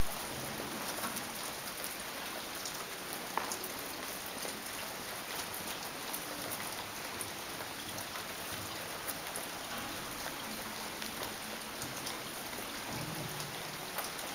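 Steady hiss with many faint, scattered ticks.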